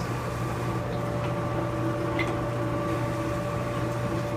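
Electric meat grinder running steadily under load, its motor humming evenly as the auger forces meat and fat through a coarse die, with a few faint ticks over the hum.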